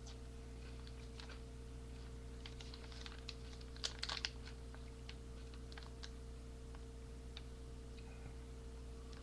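Scattered light clicks and taps, with a small cluster of them about four seconds in, over a steady low electrical hum.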